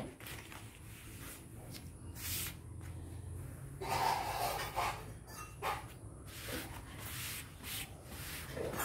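Soft rustling of cotton fabric being smoothed and handled by hand on a plastic floor mat, in a few brief swishes, the longest about four seconds in.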